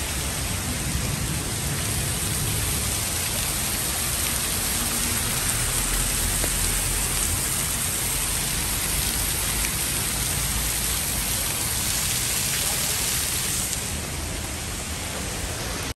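Heavy rain pouring down, a steady dense hiss of a downpour, a little softer near the end.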